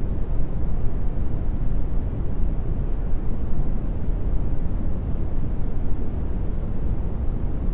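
Brown noise: a steady, deep rushing hiss, strongest in the bass and falling away towards the treble, with no changes.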